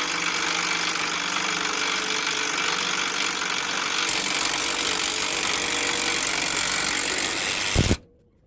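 A power tool running with a continuous rapid hammering rattle during work on the tractor's wheels, stopping abruptly near the end.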